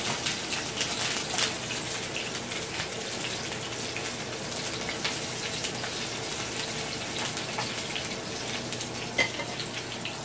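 Sliced onion, green pepper and thyme frying in hot oil in a nonstick pan: a steady sizzling hiss dotted with many small crackles and pops as the vegetables sauté.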